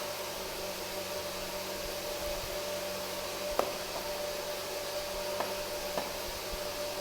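Steady background hiss with a faint steady hum, broken by a few light sharp clicks, three of them in the second half, as of small parts being handled.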